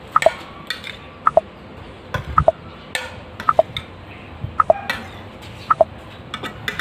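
A countdown timer's tick-tock sound effect, a short two-note tick about once a second, keeping time with the on-screen countdown. Between the ticks a metal spoon clinks and scrapes on plastic plates as cotton balls are scooped.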